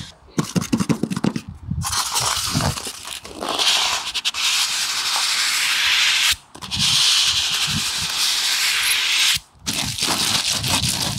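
Polystyrene foam packing inserts being handled and pulled out of a cardboard box: some taps and knocks, then two long scraping rubs of foam sliding against cardboard, each a few seconds long, with a short break between them. Light rustling and taps of the plastic-wrapped unit near the end.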